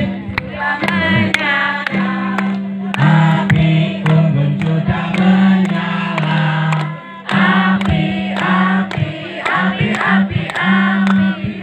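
A group of voices singing a song together in chorus.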